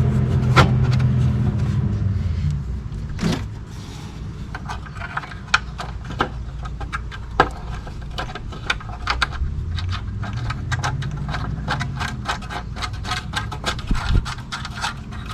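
Metal hand tools clicking and clinking as bolts are done up, with long runs of quick, uneven ratchet clicks. A low vehicle rumble fades out in the first couple of seconds.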